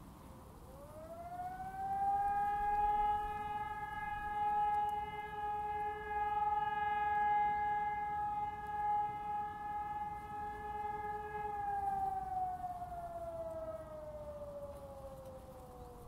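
Hörmann ECI 600 electronic siren sounding one wail of a test alarm: the tone rises over a second or two, holds steady for about ten seconds, then slowly falls away through the last few seconds.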